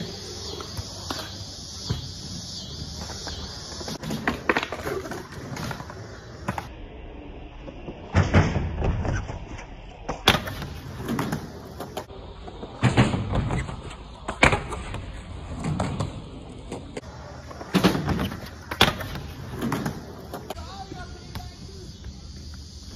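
Skateboards rolling on concrete, with repeated sharp clacks and thuds from boards hitting the ground and ramps as they land and pop, spaced a few seconds apart.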